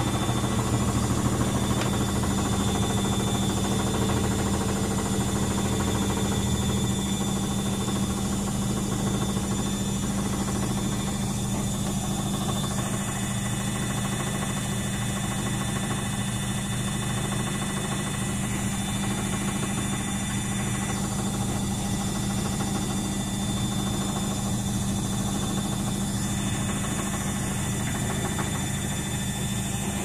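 Luxor WM 1042 front-loading washing machine on its 800 rpm spin with an unbalanced load, a steady low motor-and-drum hum that eases slightly about seven seconds in.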